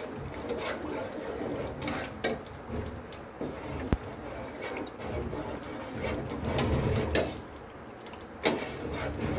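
A steel spoon stirring milk in an aluminium pot, the liquid sloshing, with a few sharp clinks of the spoon against the pot, the loudest about four seconds in.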